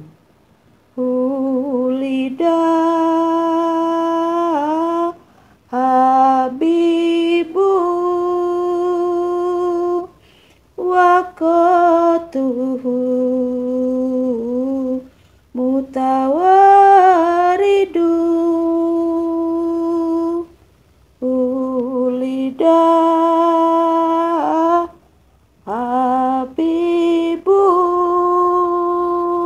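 A woman's voice singing a sholawat (Islamic devotional chant) without clear words, in phrases of a few seconds made of long held notes with brief pauses between them.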